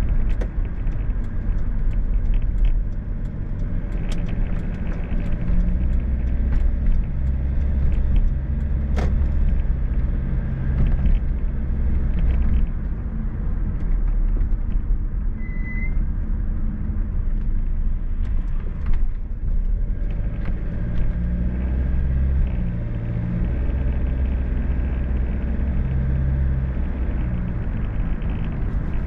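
Car driving along a road: a steady low rumble of road and engine noise, with a few short clicks.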